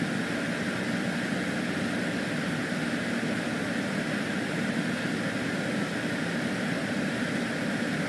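Steady, unchanging hum and hiss with no distinct events: continuous machine-like background noise.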